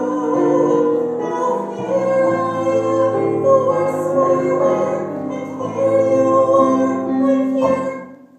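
Woman singing a show tune in held, sustained notes over instrumental accompaniment; the song ends and fades out about 8 seconds in.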